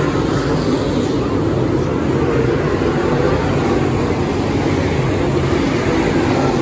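A field of dirt late model race cars racing at speed, their V8 engines blending into one loud, steady, unbroken drone.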